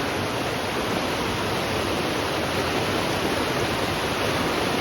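Steady rushing of a river running high.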